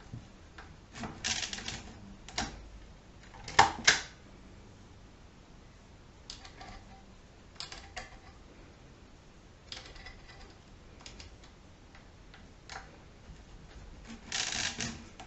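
Schubert DRV mechanical calculator being worked by hand: scattered clicks as the setting sliders are moved, and clattering rattles as the crank is turned and the register wheels spin over. The loudest rattle comes about four seconds in, and another near the end.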